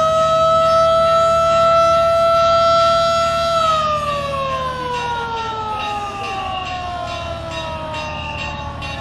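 A large river passenger launch's siren sounding one long blast: it holds a steady pitch for about three and a half seconds, then slowly falls in pitch as it winds down.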